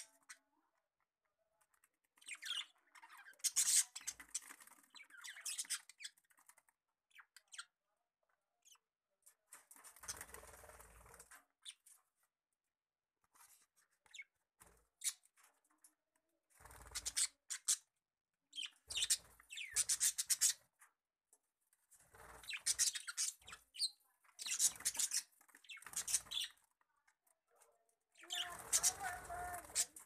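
Budgerigars chirping and chattering in scattered bursts of quick high notes, with short quiet gaps between the bursts.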